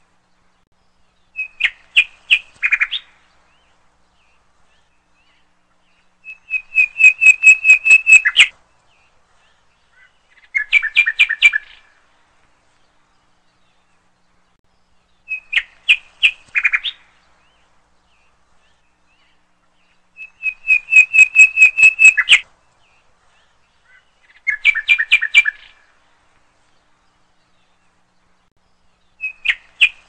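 A small songbird singing in short phrases of rapid chirps, one of them a quick even trill of about ten notes. The phrases are separated by a few seconds of silence, and the same three phrases come round again about every 14 seconds, like a looped recording.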